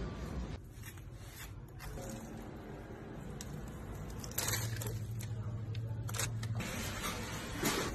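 Kitchen handling noises as meat is worked by hand: scrapes and light knocks over room noise, with a steady low hum that starts about four and a half seconds in and stops about two seconds later.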